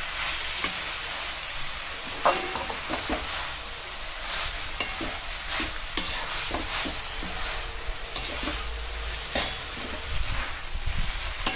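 Chowmein noodles and vegetables sizzling in a hot metal kadhai while a slotted metal spatula tosses them. The spatula scrapes and knocks against the pan with sharp clicks every second or two.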